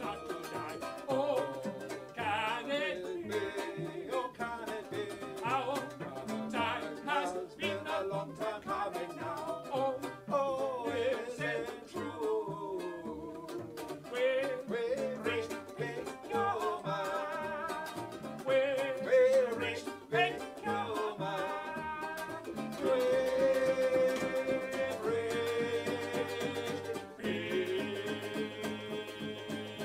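A live song: a singer with cello and a small plucked string instrument. The voice runs in short phrases, then holds long notes over a sustained chord near the end.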